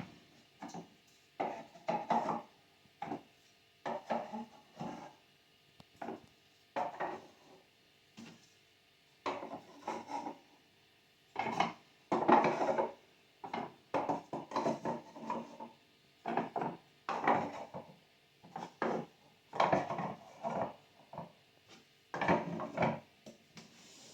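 Wooden pieces being handled, knocking and sliding against each other in irregular short clusters of clacks and scrapes, with gaps of near quiet between them.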